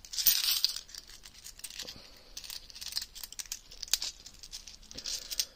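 Handfuls of 50p coins clicking and chinking against each other as they are shaken and thumbed through by hand, with the crinkle of a plastic coin bag, loudest at the start. One sharper click sounds a little before the end.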